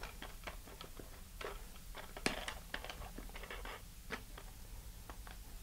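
A metal wing nut being spun by hand down a threaded rod onto a washer: faint, irregular small clicks and ticks.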